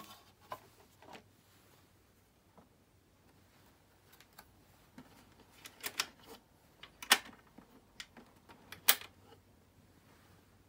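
Weltron 2007 record changer being loaded and set going by hand: a series of sharp mechanical clicks and clacks from records on the spindle and the tonearm and start control. The two loudest, crisp clicks come about seven and nine seconds in.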